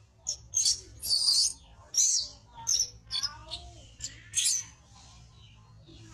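Baby monkey giving a run of about eight short, high-pitched cries over four and a half seconds.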